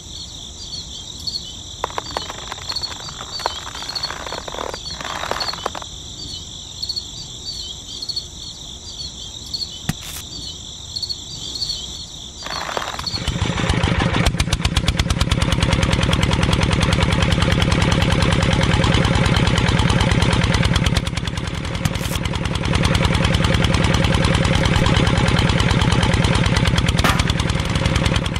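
High, even chirping in the background, with a few knocks, for about the first 13 seconds. Then the miniature engine of a model grape-juice machine starts and runs steadily with a fast, even beat, dipping briefly about 21 seconds in before picking up again.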